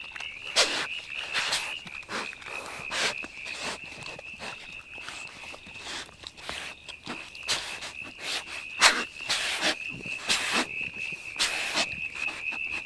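Young Tasmanian devil feeding on a roadkill carcass: irregular crunching, tearing and rustling noises from its chewing and from the leaf litter, several a second at times. A steady high-pitched whine runs underneath.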